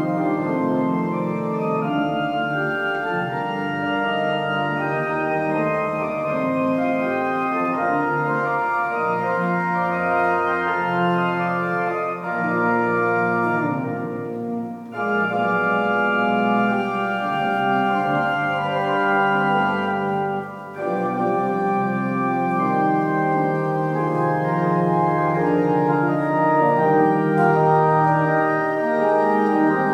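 Church organ playing slow, sustained chords, with brief breaks between phrases about 12, 15 and 21 seconds in.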